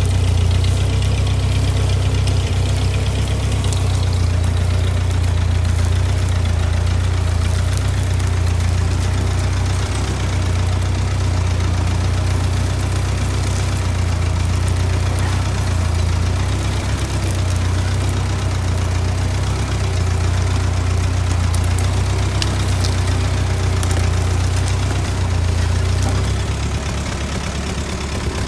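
Ford 8N tractor's four-cylinder flathead engine running with a steady, deep drone while the tractor drags chained logs. About two seconds before the end the deep drone drops away and the sound gets quieter.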